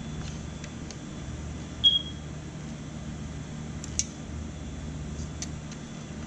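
Eaton EX 700 UPS running with a steady low hum, with one short high beep about two seconds in and a sharp click about four seconds in.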